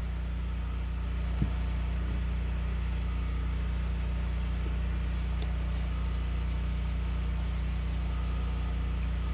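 Steady low mechanical hum, with a single small click about a second and a half in and a few faint light ticks later on.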